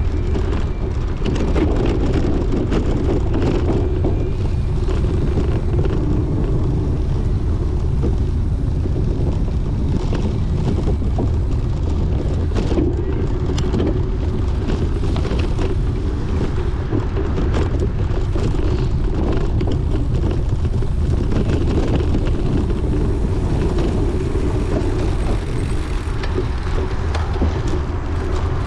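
Wind buffeting the microphone of a camera carried by a racing cyclist, with a steady low rush and frequent small clicks and rattles from the bicycle over rough ground.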